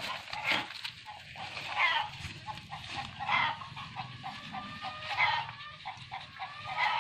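A black puppy and a baby monkey play-fighting, with short grunting and squeaking animal noises coming every second or two.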